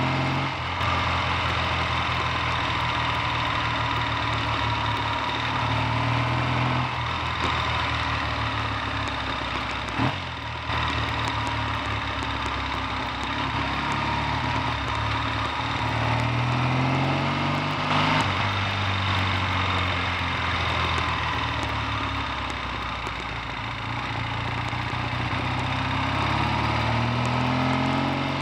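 Triumph T140V's 750 cc parallel-twin engine running under way, its revs rising and falling back several times as it pulls through the gears, over a steady rushing noise. The gearbox has been freshly rebuilt with new layshaft second and third gears.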